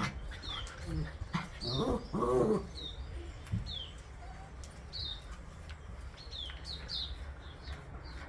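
A small bird on the ground giving repeated short, high chirps, each one falling in pitch. About two seconds in there is a brief, lower whine-like sound.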